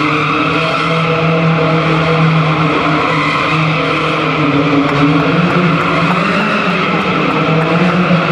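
Smart car with a Suzuki Hayabusa GSX1300R inline-four motorcycle engine held at high, steady revs while spinning tight circles, with continuous tyre squeal.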